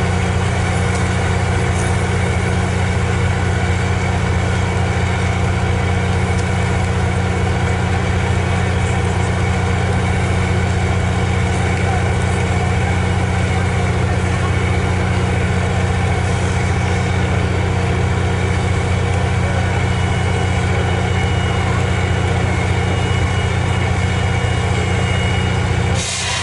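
Diesel engine idling with a steady low drone, most likely the locomotive of the MARC commuter train standing at the station.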